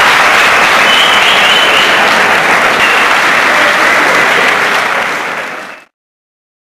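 An audience clapping loudly and densely, fading slightly near the end and cutting off suddenly just before the sixth second.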